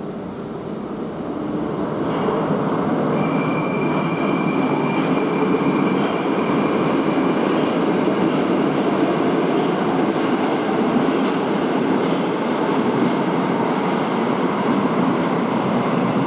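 Metro train running, a steady rushing rumble that builds over the first two seconds, with faint high whining tones over roughly the first half.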